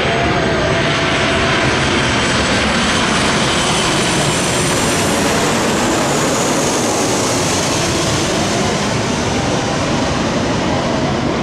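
Airliner engines running steadily: a loud, even rush of noise with a faint high whine that drops a little in pitch about halfway through.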